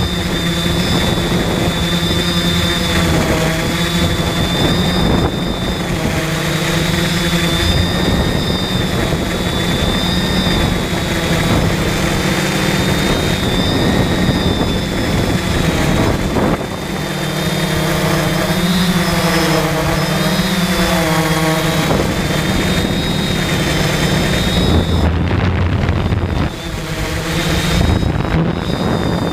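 Electric motors and propellers of a multirotor drone whirring, heard from its onboard camera, with a steady high whine over lower tones that waver and shift in pitch as the throttle changes. Rough wind noise runs under it.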